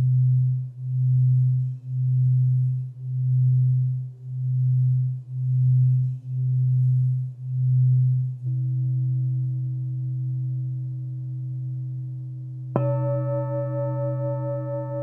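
Alchemy crystal singing bowls sounding: a deep sustained low tone that swells and fades about once a second, a higher steady tone joining just past halfway. About 13 s in, another bowl is struck and rings on brightly with several overtones.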